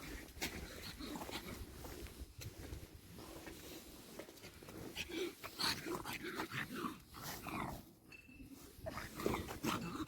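A dog snuffling and breathing close by, with scattered small rustles and clicks; no barking.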